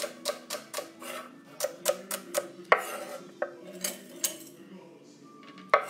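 Chef's knife chopping celery on a wooden cutting board: a run of sharp knife strikes, about three a second, pausing briefly near the end before one louder strike.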